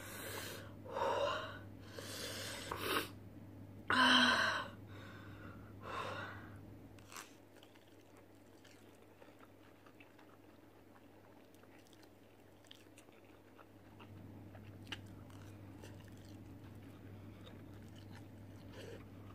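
Several loud puffs of breath in the first seven seconds, then quiet chewing and slurping of spicy instant ramen noodles with small wet clicks.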